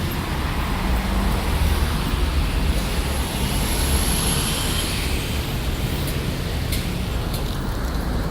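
Busy street traffic: a steady rumble of passing cars and buses, with a thin high whine for about two seconds midway and a few short clicks later.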